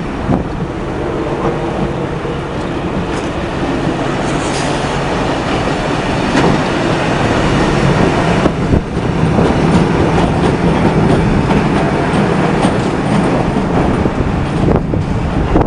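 Vintage electric streetcar passing close by on street track: a steady rumble of steel wheels on rail with a motor hum, growing louder as it goes by.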